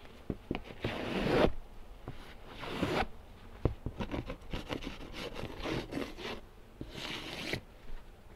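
Hive equipment being handled: quick scraping, sliding strokes, with clusters of small clicks and knocks between them.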